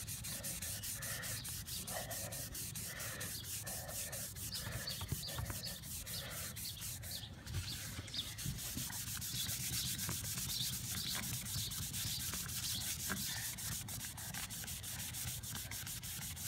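A 4,000-grit sanding disc rubbed by hand over a vinyl patio door sill, a steady scratchy rubbing in repeated strokes. This is the final polishing stage, bringing the sanded vinyl back to its original shine.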